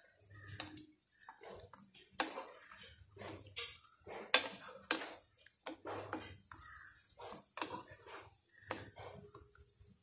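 Steel spoon clinking and scraping on a flat griddle pan as rice-flour rotti are turned over, a string of irregular clicks and short scrapes, the loudest a little before the middle.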